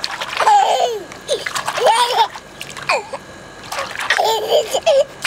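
Water splashing in a small plastic wading pool as hands slap the surface, with a baby's high-pitched squeals and giggles breaking in several times.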